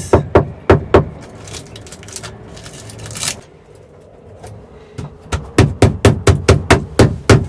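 Repeated sharp knocks on a freshly cured fibreglass support, rapped to test whether the resin has set hard. There are a few knocks at the start, a short scrape in the middle, then a quick run of about six knocks a second near the end.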